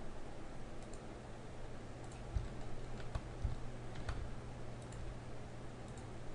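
Scattered clicks of a computer mouse and keyboard, about ten in six seconds at an irregular pace, over a faint steady low hum.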